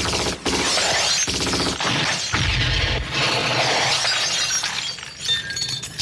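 Action-film gunfight sound effects: rapid gunfire mixed with glass shattering and breaking, with a heavy low boom about two and a half seconds in. It eases off near the end.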